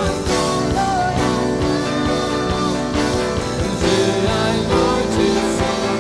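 Live worship band music with guitars and a steady drum beat under a gliding melodic lead line.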